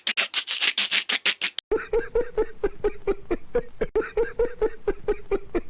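Two laughing sound effects in a row. First a breathy, wheezing laugh of rapid hissy gasps, which cuts off about a second and a half in. Then a different laugh of quick, short 'ha' pulses at a steady pitch, about five or six a second.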